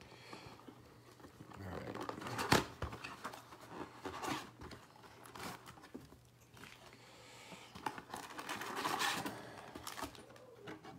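A small cardboard Topps trading-card box being torn open by hand: its flaps tear and crinkle, with a sharp snap about two and a half seconds in.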